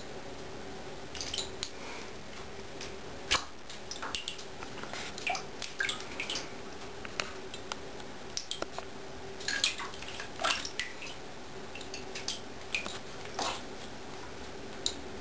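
A Savannah cat pawing at goldfish in shallow bathtub water: scattered small splashes and drips at irregular moments, the sharpest about three seconds in and several close together around ten seconds, over a faint steady hum.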